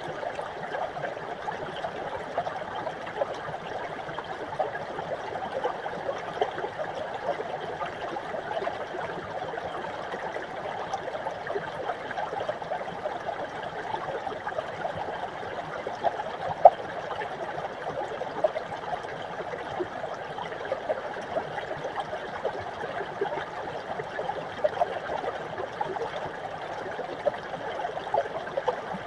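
Small mountain brook babbling and trickling steadily over rocks, with a constant patter of little plinks and gurgles and one slightly louder splash a little past halfway.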